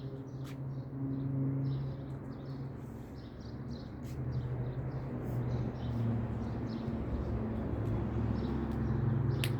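Small birds chirping in short, repeated calls over a steady low hum, with a sharp click near the end.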